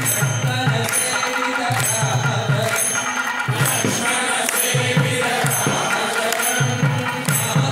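Devotional temple music: chanted singing through a microphone over a steady rhythm of hand claps and ringing metal strikes.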